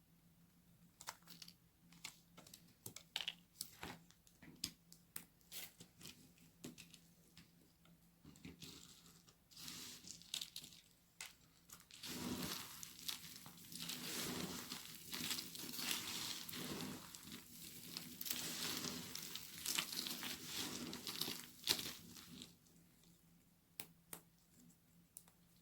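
Very dry soap being cut: a run of sharp separate crackles and snaps, then from about twelve seconds in some ten seconds of dense, continuous crunching, then scattered crackles again near the end.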